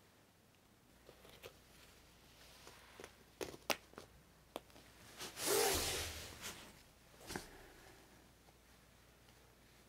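Fabric rustling and soft clicks and taps as a cat shifts and climbs about on a person's lap and a foam floor mat. The loudest is a rustle lasting about a second near the middle.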